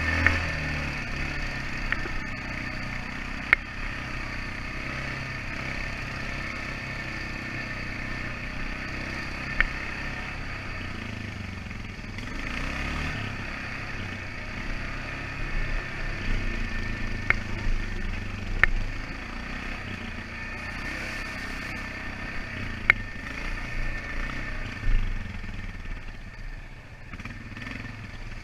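ATV engine running while riding, its pitch shifting with the throttle. Now and then there is a sharp knock or clatter.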